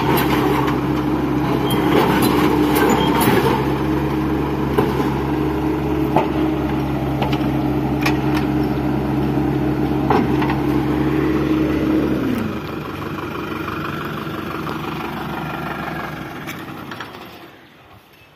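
Bobcat mini excavator's diesel engine running steadily, with scattered metallic clanks, then winding down and stopping about twelve seconds in. A quieter engine hum carries on and fades out near the end.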